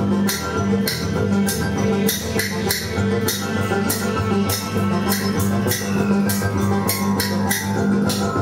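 Live improvised ensemble music: a sustained low drone with steady tones above it, under a rattling percussion pattern of about three to four strokes a second.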